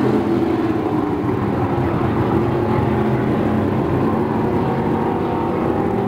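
Several IMCA stock cars' V8 engines running at race speed, a steady drone of overlapping engines.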